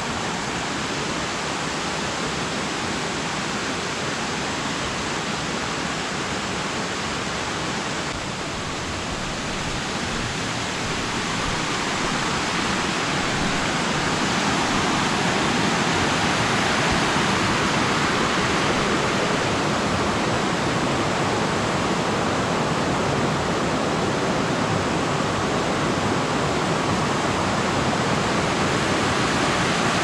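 Stream water rushing over rock cascades and small waterfalls, a steady roar of water noise that grows louder about a third of the way in as the white-water drops come closer.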